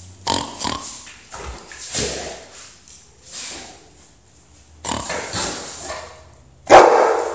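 Rottweiler chewing and gnawing a pig snout treat, in irregular bursts of noisy, wet mouth sounds, with one louder burst near the end.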